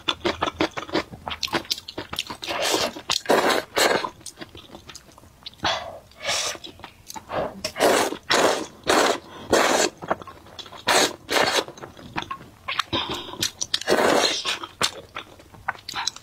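A person slurping thick noodles out of broth and chewing them, close to the microphone: repeated wet slurps with smacking and crunching mouth sounds between them.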